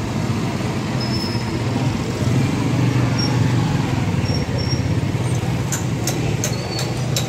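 Steady low rumble of street noise with a few faint high chirps. From about six seconds in there is a run of sharp regular clicks, about three a second.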